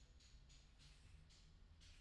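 Faint, soft swishing of a small grooming brush stroked through a Siberian husky's thick white coat, about two to three strokes a second.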